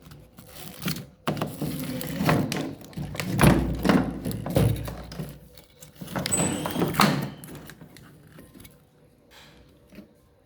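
Irregular knocks, thuds and clatter, fading to a few faint taps in the last few seconds.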